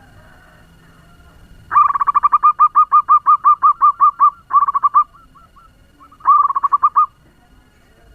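Zebra dove giving its rapid staccato cooing call: a long run of quick notes at about six a second, then two shorter runs.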